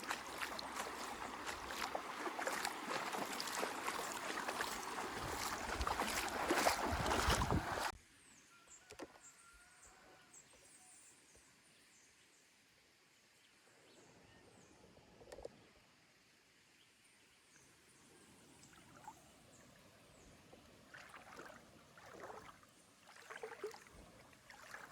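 Water splashing and sloshing in a shallow river pool for about eight seconds, then cutting off suddenly, leaving only faint scattered small sounds.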